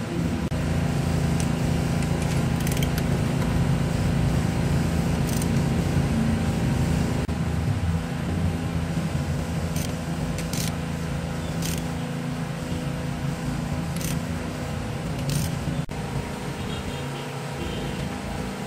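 A steady low mechanical hum, with a few short, sharp clicks scattered through it.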